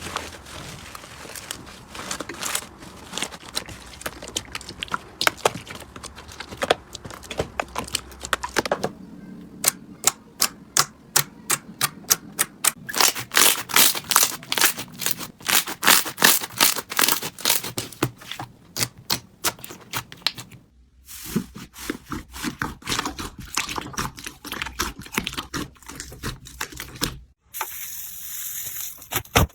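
Slime being pressed and worked by hand, giving trains of crisp clicks and pops that come fastest and loudest in the middle. The sound changes abruptly a few times as one slime gives way to another.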